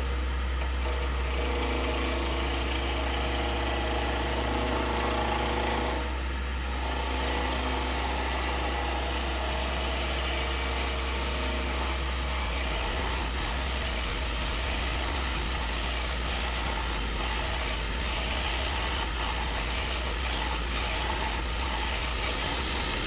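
Wood lathe spinning a mahogany blank while a U-shaped gouge cuts it down toward a cylinder: a steady motor hum under the continuous hiss and rasp of the gouge on the wood, with a brief break in the cutting about six seconds in.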